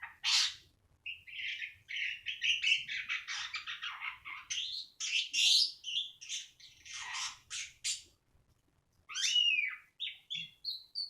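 Asian pied starling (jalak suren) singing: a long run of rapid, harsh chattering and squawky notes, a brief pause, then clear whistled notes that slide in pitch near the end.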